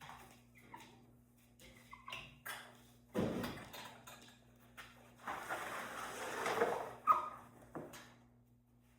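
Handling noises of a bird cage being cleaned: scattered clicks, a thump about three seconds in, a couple of seconds of scraping and rustling, then a sharp click.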